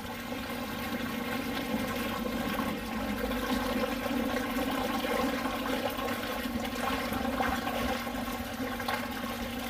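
Spent hops and trub from the bottom of a brewery boil kettle gushing out through the opened drain valve, pouring steadily from a stainless pipe into a floor drain.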